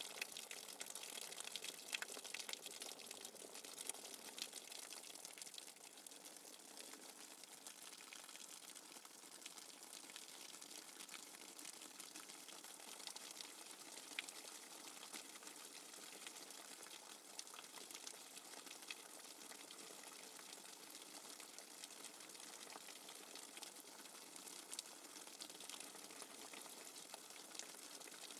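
Rainwater dripping fast and hard: a faint, dense, steady patter of many small drops.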